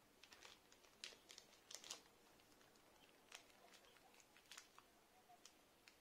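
Faint crinkling of a small plastic zip-lock bag being squeezed and handled as loose mica powder is tipped out of it, in irregular short crackles that are thickest in the first two seconds.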